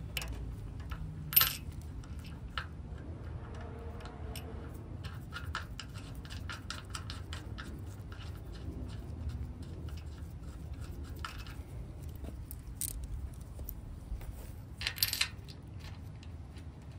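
Steel bolts and flat washers clinking and ticking against the steel mounting plate of a trailer tongue jack as they are set in place and threaded by hand, with one sharper clink about a second and a half in and a short run of clinks near the end.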